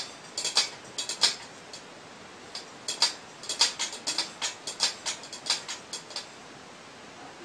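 A cat's paw and claws tapping and scraping in a stainless steel bowl as it paws at it: quick light clicks, with a short pause about two seconds in, then about three to four a second until they stop near six seconds in.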